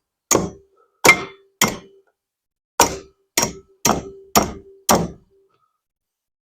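Eight hammer taps on a long nail set against a rubber bushing in a steel motor cradle, each a sharp metallic clang with a short ring. The last five come about half a second apart. The bushing is stuck and not budging.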